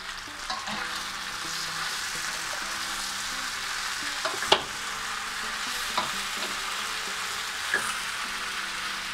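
Strips of beef steak sizzling in hot oil in a frying pan while a slotted spatula stirs them. A few sharp knocks of the spatula against the pan sound over the steady sizzle, the loudest about halfway through.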